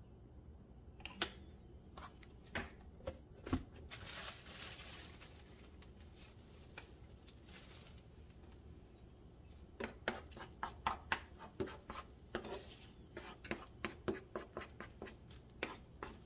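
Spatula scraping and tapping in a small nonstick skillet as eggs are scrambled with chorizo and onion. A few scattered knocks in the first seconds, then a quick run of scrapes and taps over the last six seconds.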